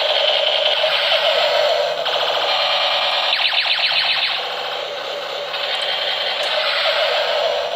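Battery-powered Captain America-themed toy AK-47 rifle playing its electronic firing sound effect through a small speaker: a thin, rapid, repeating warble of sweeps whose pattern changes every second or two.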